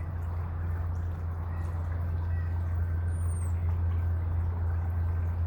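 Steady low hum under an even rushing background noise, with one brief high, falling bird chirp about three seconds in.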